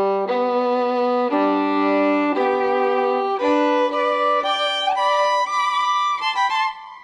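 Background music: a violin playing slow held notes, about one a second, then quicker, higher notes with a slight waver in pitch near the end.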